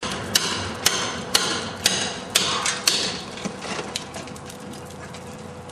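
Hammer blows knocking plaster out of a wall, about two strikes a second: six sharp ones, then a few fainter knocks near the end.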